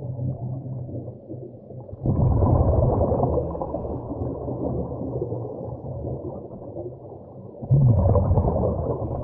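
Scuba diver breathing out through a regulator underwater: two gushes of exhaled bubbles, about two seconds in and again near the end, each lasting about a second and a half, over a steady muffled underwater rumble.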